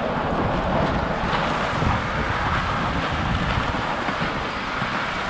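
Dog sled runners hissing and scraping over packed snow as the team pulls the sled along, with wind buffeting the microphone: a steady rushing noise.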